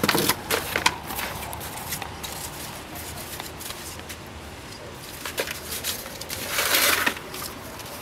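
Paper bird cutouts rustling as a hand sorts through them in a cardboard box, with one loud rustle about six and a half seconds in. A few sharp clicks and knocks near the start.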